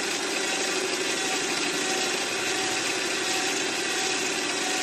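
Mini lathe running with a fly cutter cutting a workpiece in a vise on the cross slide, mixed with the whir of a cordless drill driving the cross-slide feed handle. The sound is even and unbroken throughout.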